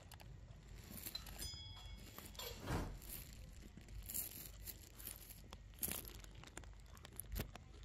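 Faint crinkling and tearing of a small paper drink carton as a macaque bites at it and handles it, heard as scattered short crackles and clicks.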